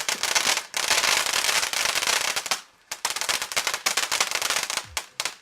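Fireworks crackling and popping in rapid, dense volleys, with a brief lull a little before halfway through.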